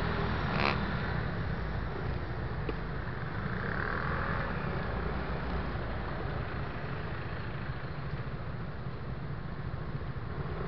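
Riding sound of an MBK Tryptik three-wheel scooter in city traffic: a steady low rumble of engine and wind buffeting the microphone, with the noise of surrounding scooters and cars. A sharp click about a second in.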